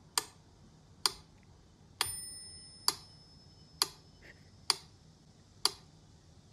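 Mechanical pyramid metronome ticking steadily, about one tick every 0.9 seconds. On the tick about two seconds in, its bell dings and rings briefly.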